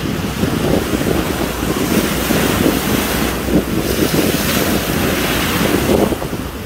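Strong wind buffeting the microphone over the steady wash of choppy sea waves.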